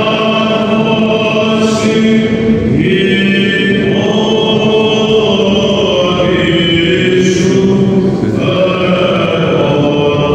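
Byzantine chant in an Orthodox church: voices holding long melodic notes that change pitch every few seconds over a steady low held note, the ison drone.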